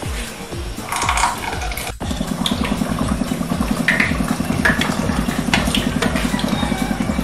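An engine idling with a steady fast throb, cutting in abruptly about two seconds in, with light clicks and clinks over it.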